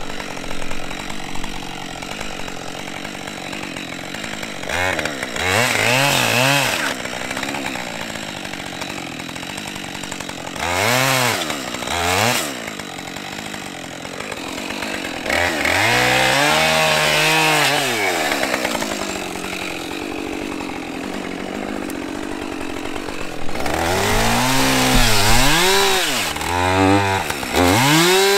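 Gasoline chainsaw idling and being revved up again and again as it cuts into the base of a standing dead tree, each rev rising and falling in pitch, the longest runs about halfway through and near the end.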